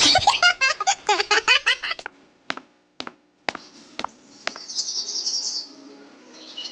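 Birds chirping in a quick run of high notes, followed by five sharp clicks about half a second apart and then softer high chatter.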